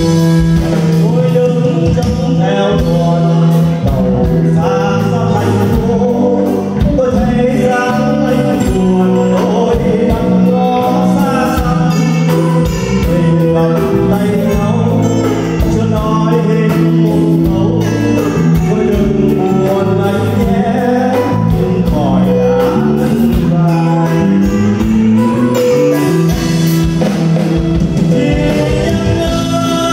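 A man singing into a microphone with a live band of electric guitar, drum kit and keyboard, played through PA speakers.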